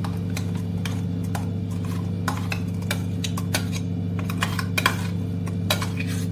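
Metal spoon scraping and clinking against a steel mixer-grinder jar as thick chutney is scooped out into a glass jar: a scatter of light, irregular clicks and scrapes over a steady low hum.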